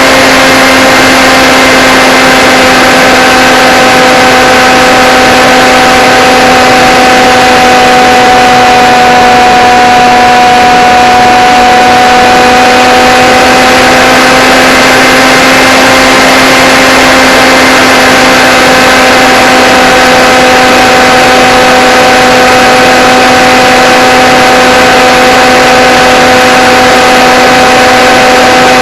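Blade Theory Type W quadcopter's brushless motors and propellers running in flight, a loud steady whine with a faint rushing hiss under it. The pitch holds nearly level, dipping slightly around ten seconds in.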